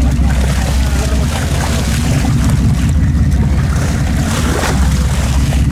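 A boat's engine running steadily, with water splashing and washing against the hull.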